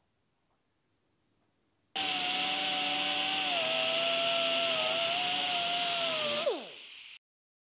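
Right-angle air die grinder with a small abrasive disc grinding the overlapping sheet steel of a fuel tank's weld seam back to a butt joint. It starts suddenly about two seconds in with a loud steady whine and hiss, its pitch wavering a little under load. Near the end it is let off and the whine falls in pitch as the disc spins down.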